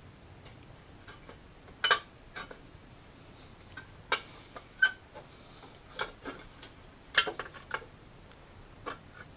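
Irregular clicks and light knocks of parts being handled and worked into place in a car's engine bay, about a dozen sharp taps spread unevenly, the loudest about two seconds in and again about seven seconds in.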